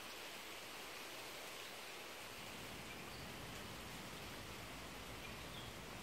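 Steady, even background hiss outdoors, with a faint low rumble coming in about halfway through.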